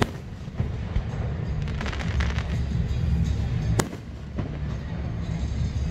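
Fireworks going off: a sharp bang at the start, a burst of crackling about two seconds in, and another sharp bang just before four seconds, with music underneath.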